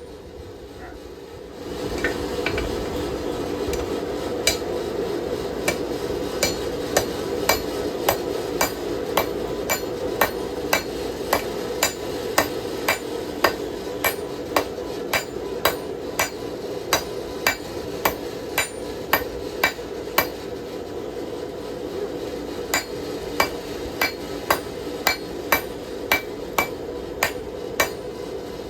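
Hand hammers striking hot steel on an anvil in a steady rhythm of a little under two blows a second, each with a short metallic ring, as the knife's handle is forged to shape. A steady low rushing noise runs underneath from about two seconds in.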